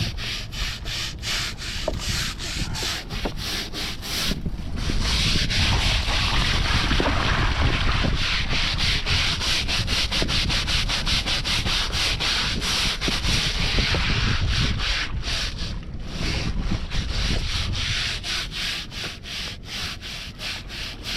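Stiff brush scrubbing a sailboat's deck in rapid back-and-forth strokes, running into a steadier continuous scrub for several seconds in the middle.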